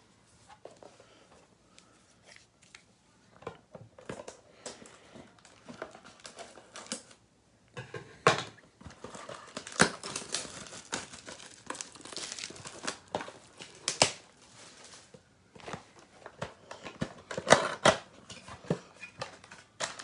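Plastic shrink-wrap being torn off and crumpled and a cardboard blaster box of football trading cards opened: a run of irregular crinkles, rips and clicks, sparse at first and busier and louder from about eight seconds in.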